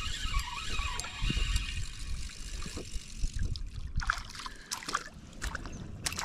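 Spinning reel being cranked, its gears whirring for the first couple of seconds. From about four seconds in, a hooked crappie splashes at the water's surface beside the kayak several times.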